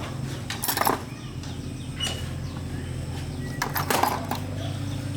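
A few sharp knocks, like metal being struck, over a steady low machine hum; the knocks fall about a second in, near two seconds and around four seconds.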